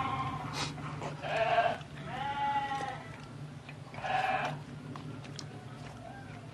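Farm animals bleating, three wavering calls about a second, two seconds and four seconds in, over a steady low hum.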